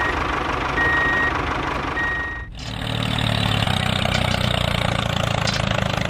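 Vehicle reversing alarm beeping twice over engine noise, then a low, steady engine idle sound from about halfway through.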